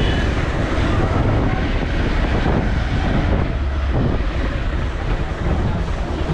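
Riding a scooter: a steady rumble of wind on the microphone with the scooter's engine running beneath it.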